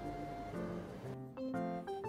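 Background music: a light tune of short, evenly paced notes.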